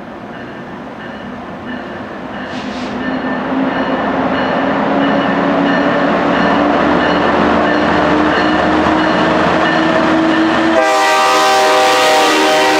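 Diesel locomotive approaching out of a tunnel, its engine drone growing louder and rising slightly in pitch. About eleven seconds in, its air horn is blasted, loud and amplified by the concrete wall beside the track.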